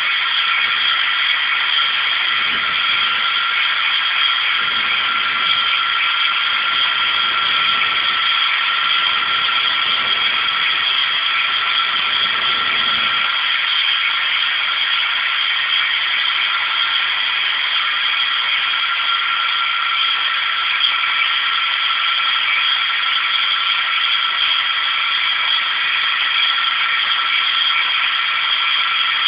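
Small CNC-converted Emco Unimat SL lathe turning a metal chuck flange: a steady high-pitched machine whine with hiss. A lower rumble comes and goes from about two to thirteen seconds in.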